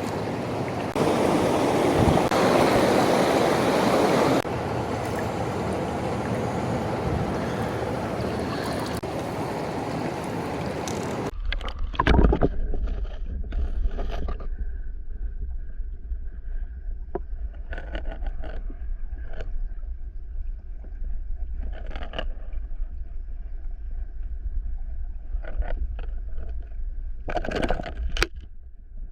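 Rushing stream water, louder for a few seconds near the start, cuts off abruptly about eleven seconds in. A low wind rumble on the microphone follows, with scattered knocks and clicks of handling.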